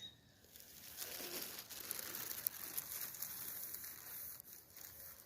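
Faint crinkling and rustling with scattered soft ticks.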